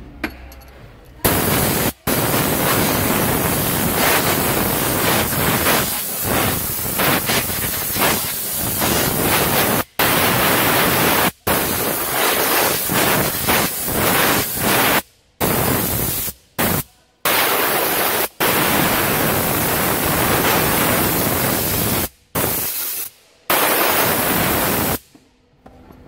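Compressed-air blow gun blasting into a Ford Ranger's cabin air filter housing to blow dust out of the ventilation ducts: long bursts of loud hissing air that cut off abruptly several times and start again.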